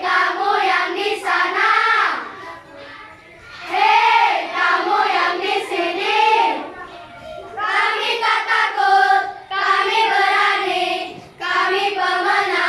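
Children's choir singing in phrases separated by short breaths.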